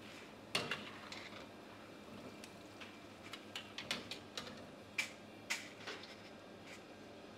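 Freshly fried peanuts clicking and rattling against a steel wire-mesh strainer and perforated ladle as they are scooped out of the hot oil and drained: a scatter of light, sharp clicks at uneven intervals, the strongest about half a second in and around five seconds in.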